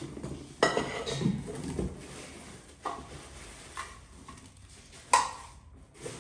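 Tisoli stainless steel pots and lids being unpacked: a loud metal clatter about half a second in and another near the end, with lighter knocks between, over the rustle of plastic wrapping.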